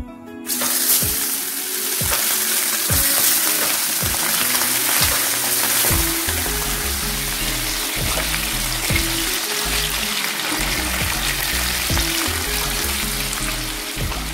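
Pomfret fish frying in hot oil, a loud steady sizzle that starts abruptly about half a second in.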